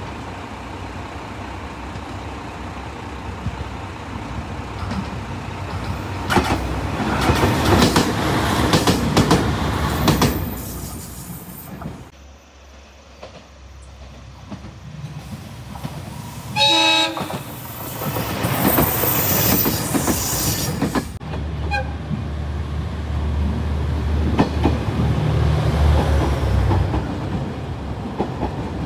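JR Shikoku 2000 series diesel trains running past in several separate takes, with engine and wheel-on-rail noise that swells and falls as each train passes. A little past halfway there is one short horn toot.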